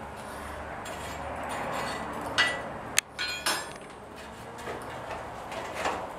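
Blacksmith's poker and tools scraping in the coal and clinking on the iron hearth of a coal forge as the fire is worked, with a few sharp metal clinks near the middle over a steady hiss.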